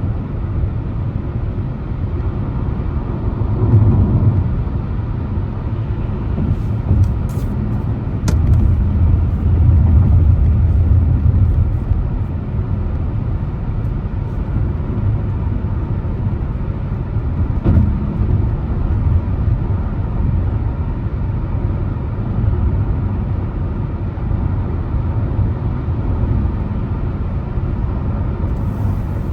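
A car driving on a road: a steady low rumble of engine and tyre noise that swells around four seconds in and again for a couple of seconds a little later. A few faint clicks and a brief tap come near the middle.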